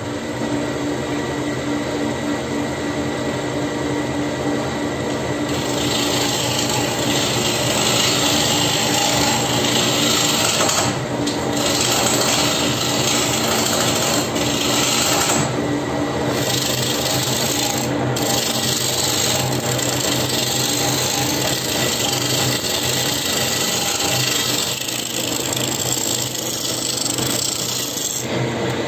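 Wood lathe running with a steady motor hum while a burl bowl blank spins. From about five seconds in, a cutting tool shaving the wood adds a loud scraping noise, broken by a few short pauses.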